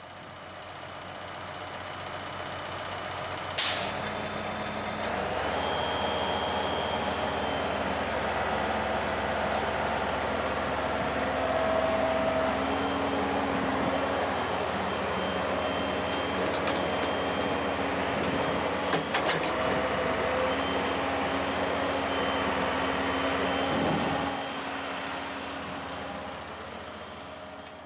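A John Deere 490D excavator's diesel engine running under load while the boom and bucket work, with a high whine that comes and goes and a sharp knock about four seconds in. The sound swells up over the first few seconds and falls away near the end.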